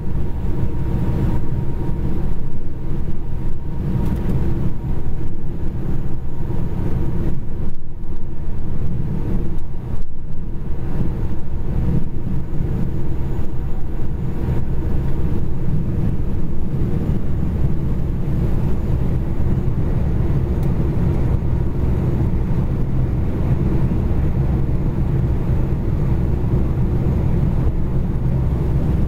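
Steady engine and road rumble heard from inside a vehicle's cab while it cruises along a highway.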